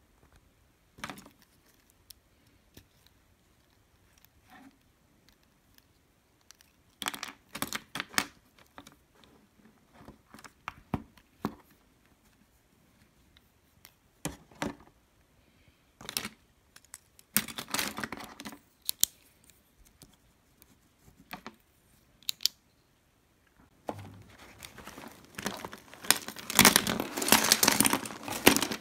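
Pens and plastic stationery clicking and knocking now and then as they are picked up and sorted on a wooden desk. Near the end a pencil case is tipped over and its pens pour out onto the desk in a dense, rattling clatter, the loudest part.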